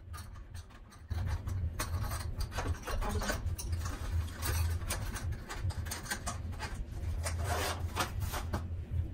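Small cardboard box and sock-machine parts being handled: irregular scraping, rustling and light clicks as the pieces are packed back into the box, starting about a second in. A steady low hum lies underneath.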